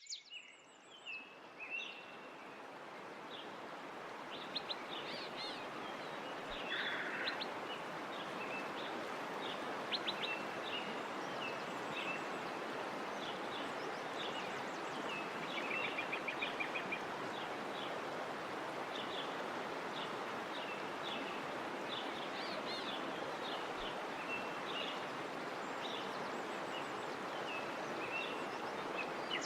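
Small birds chirping and calling in short, scattered phrases over a steady, even background noise that fades in over the first several seconds.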